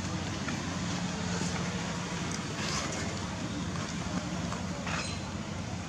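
Steady low mechanical hum over an even background noise, like a motor or traffic running, with a few faint clicks.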